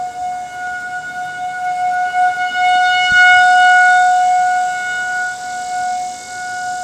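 Outdoor tornado warning siren sounding a steady, unwavering tone during a siren test. It swells louder about three seconds in, then eases off.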